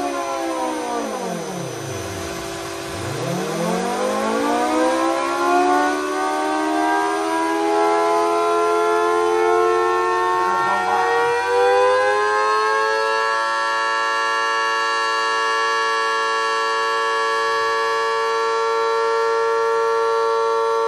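Mini 3D-printed replica of a Federal Signal Thunderbolt 1003 siren with a rotating horn, sounding. Its pitch sweeps down in the first seconds, then climbs and levels off about two-thirds of the way through into a steady multi-tone wail.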